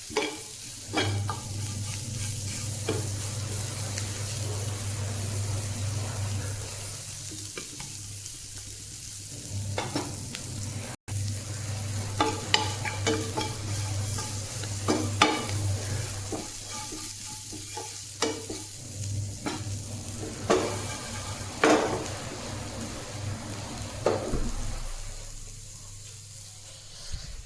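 Radish-leaf bhaji frying in a pan, stirred with a spatula: a steady sizzle with a scrape or knock against the pan every second or two over a steady low hum.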